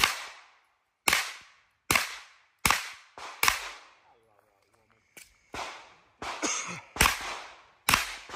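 A string of handgun shots fired during a timed practical-shooting stage, about ten sharp cracks, each trailing a brief echo, at a steady pace of one every half second to a second, with a pause of about a second and a half near the middle.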